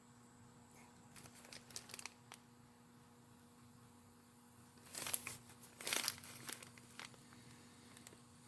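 Faint crackling, with two short, louder spurts about five and six seconds in: soldering flux bubbling and spitting as a small torch flame heats a valve part for silver soldering.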